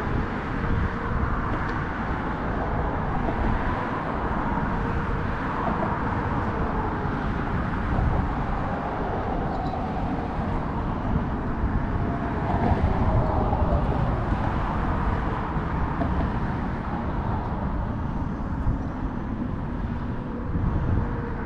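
Steady rumble of road traffic crossing the bridge.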